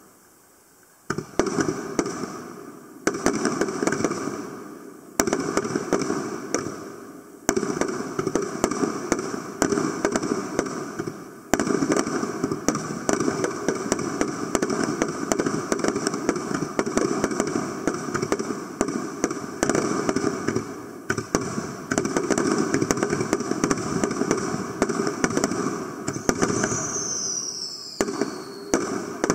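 Aerial firework shells bursting one after another: sudden loud bangs, each followed by dense rapid crackling as the stars burn out. A falling whistle sounds near the end.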